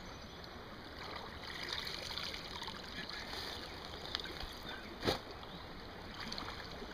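Shallow creek water sloshing and splashing around wader boots as a person wades and lifts a trapped beaver out of the water, with a single sharp knock about five seconds in.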